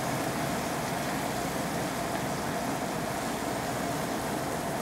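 Steady fan noise with a faint steady hum, such as a kitchen fan running.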